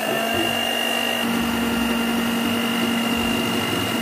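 Electric hand mixer running steadily at low speed with a constant motor whine, its twin beaters whipping an ice cream base of whipped cream, condensed milk and orange essence in a steel bowl.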